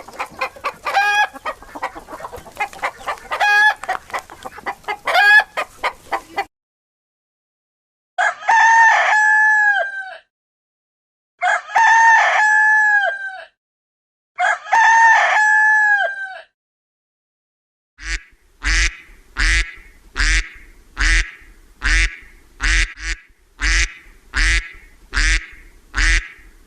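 Hens clucking rapidly with a few longer pitched calls, then a rooster crowing three times, each crow about two seconds long. Near the end comes a run of about a dozen short, sharp calls at an even pace, roughly one every 0.7 s.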